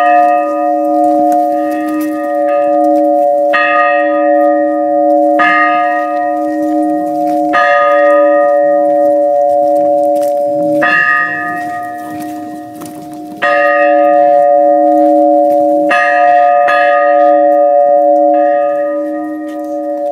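Church bell cast at the Tutaev foundry, struck by its clapper about nine times at uneven intervals, each strike ringing on in a long, steady hum beneath the next.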